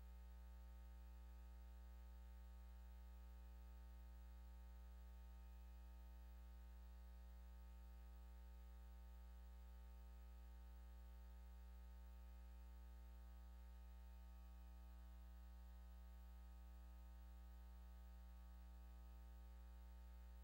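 Near silence, with a faint, steady low electrical hum that holds unchanged throughout.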